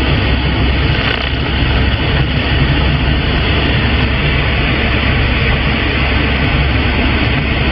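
CB radio receiver giving a steady, loud hiss of static with no station coming through: the channel is open while band propagation has dropped off.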